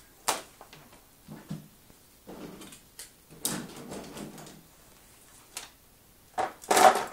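Handling noises as a gloved hand works a sheet of rhinestone crystal mesh on a table: a sharp click, then several short bursts of rustling and scraping, the loudest near the end.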